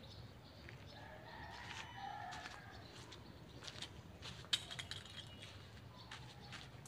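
A faint distant bird call about a second in, then a few light slapping steps of flip-flops on the ground, the sharpest about halfway through.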